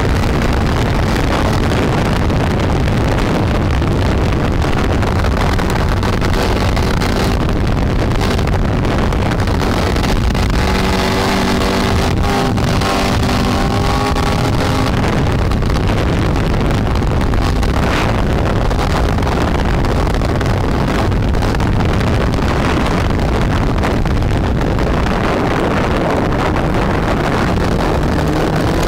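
Snowmobile engine running steadily at speed, heard from the rider's seat with wind buffeting the microphone. For a few seconds around the middle the engine note holds a clearer, steady pitch.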